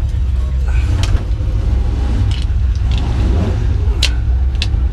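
Racing harness buckles and straps clicking and rattling a few times as the driver is strapped in, over a steady low rumble.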